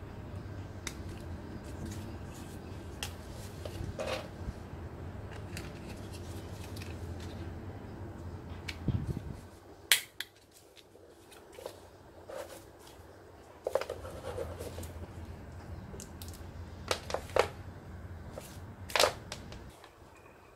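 Handling of a table lamp's white plastic base, legs and power cord during assembly: scattered clicks and taps of plastic parts, the loudest about ten seconds in and a few more near the end. A low steady hum underneath drops out around the middle, comes back, and stops again near the end.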